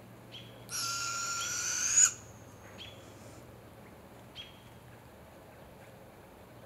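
A young barred owl gives one raspy, hissing screech about a second and a half long, the begging call of a fledgling. The screech rises sharply in pitch at its end and trails off into a thin high whistle. A few faint short chirps come before and after it.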